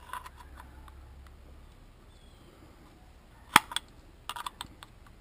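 Sharp metal clicks of hand tools on a vacuum cleaner motor as side cutters and a wrench grip the fan and its shaft nut: one loud click about three and a half seconds in, then a quick cluster of lighter clicks, with faint handling noise between.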